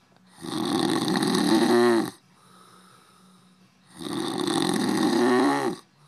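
A sleeping man snoring loudly: two long snores about three and a half seconds apart, each ending with a downward slide in pitch, with quiet breathing between them.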